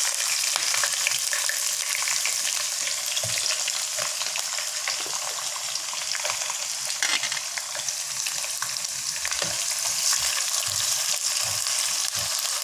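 Chopped onion sizzling in hot oil and ghee with whole spices in a pan, a steady frying hiss, with the occasional scrape and tap of a spatula stirring it.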